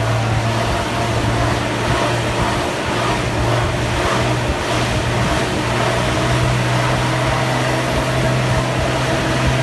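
Car driving through floodwater, heard from inside the cabin: a steady low engine hum under a continuous rush of splashing water.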